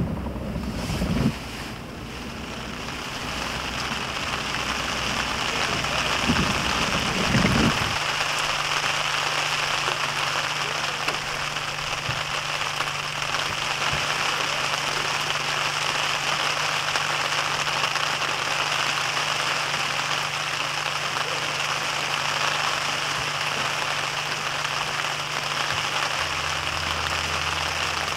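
Steady rain falling, an even hiss that builds over the first few seconds and then holds.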